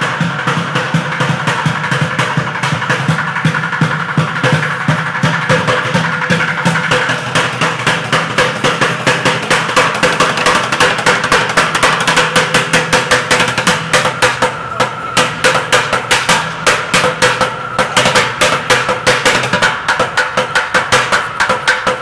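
Bucket drumming: wooden drumsticks beating quick, busy rhythms on upturned plastic buckets, the strokes growing sharper and more distinct about halfway through. A steady low hum runs underneath.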